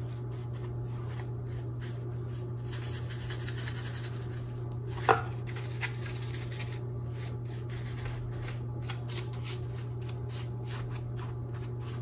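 Large filbert brush dragging thinned acrylic paint over a stretched canvas in repeated short, scratchy strokes, over a steady low hum. A single sharp knock about five seconds in.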